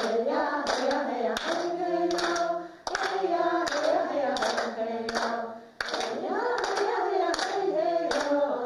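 A group singing a song while partners clap hands together in a clapping game, the claps keeping a steady beat of about two a second. The singing breaks briefly between phrases.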